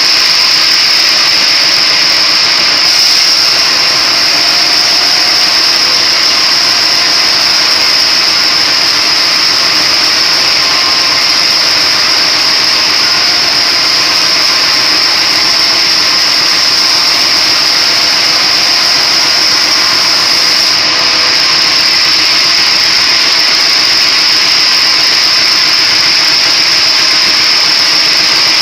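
A splitting machine running steadily and loudly, with a high whine over its noise and no change in pace.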